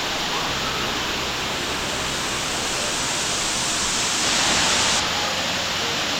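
Kanto Lampo waterfall rushing in a steady, loud white-water roar, briefly brighter about four seconds in, then dropping slightly at five seconds.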